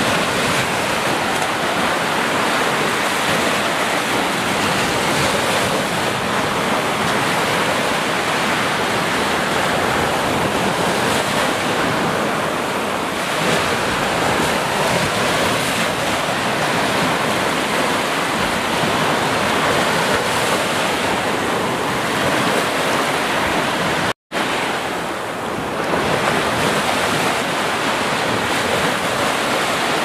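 Small sea waves breaking and washing up a sandy beach: a steady, continuous surf wash. It cuts out for an instant about three-quarters of the way through.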